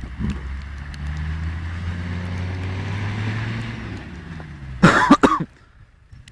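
Car engine running under throttle, its pitch rising slightly as the car works through deep snow, then dropping away about four seconds in. About five seconds in, a short, loud burst from a person's voice close to the microphone.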